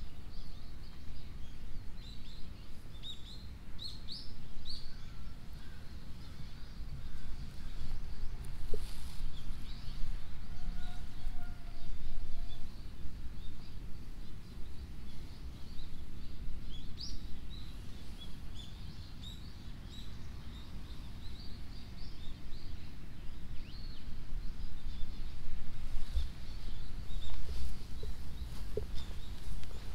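Small birds chirping on and off over a steady low outdoor rumble.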